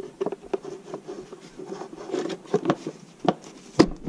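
Plastic outer casing of a Karcher K4 pressure washer being worked down onto the body: plastic rubbing and scraping with a run of light irregular knocks, then a louder click near the end as the casing clicks into place.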